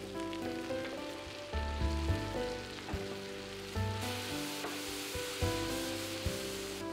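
Mixed fresh mushrooms sizzling as they are tipped into hot butter and olive oil in a frying pan. The sizzle grows louder about four seconds in. Background music plays throughout.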